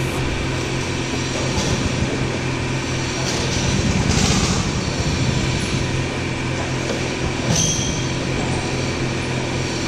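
Go-kart engines idling in a steady drone, with a brief louder surge about four seconds in and another near the end.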